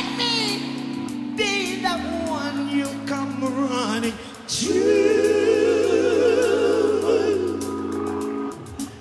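Background music: a song with a singer over a steady accompaniment. About halfway through the singer holds a long, wavering note, the loudest part.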